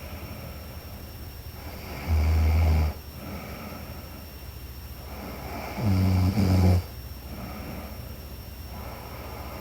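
A sleeping woman snoring: two loud, low snores about four seconds apart, the second briefly broken in the middle, with quieter breathing between them.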